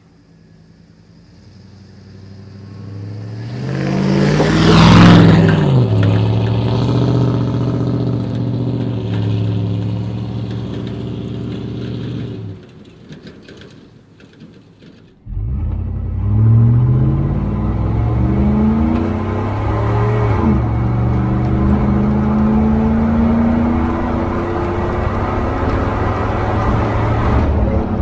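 V8 pickup truck exhaust through a Flowmaster Super 10 chambered muffler with the catalytic converters removed. The truck drives past, getting loud as it passes about five seconds in, its pitch dropping, then fading. After a short lull, the exhaust with catalytic converters in place is heard from the truck bed, rising and falling in pitch as the truck accelerates and slows.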